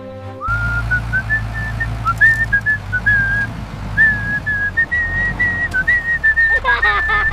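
A tune whistled in a string of short melodic notes, starting about half a second in, over a low steady rumble.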